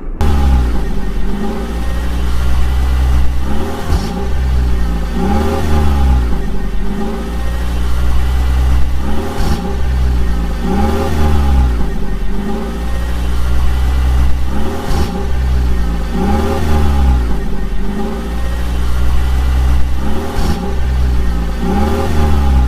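Engine revving over and over, the pitch rising and falling about every two and a half seconds in an even repeating pattern over a steady low rumble.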